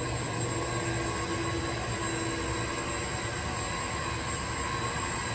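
Walk-behind floor grinder-polisher running steadily as it polishes a terrazzo floor: a constant motor drone with a thin high-pitched whine over it.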